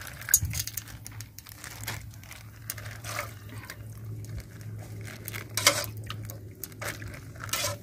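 A thin plastic bag crinkling while a steel ladle scoops and pours mắm broth in a pot, with a few sharp knocks, the loudest about two thirds of the way in and near the end. A low steady hum runs underneath.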